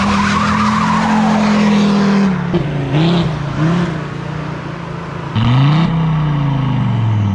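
1993 Mercedes-Benz W124 300D's turbocharged OM602 inline-five diesel revving hard: held high for about two seconds, then dropping, two quick blips, and a final rev that climbs about five seconds in and slowly falls away.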